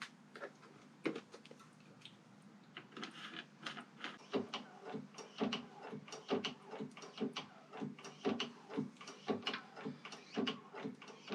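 Harley-Davidson rear brake pedal and master cylinder being pumped over and over, a quick run of mechanical clicks and knocks at about three a second. This is the pumping that builds pressure in the newly filled rear brake system while it is bled.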